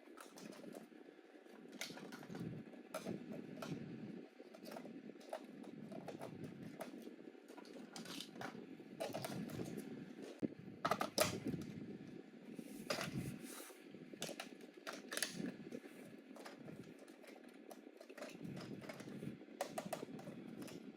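Scattered clicks and taps of toys being handled, over a low steady hum; the loudest clicks come about halfway through.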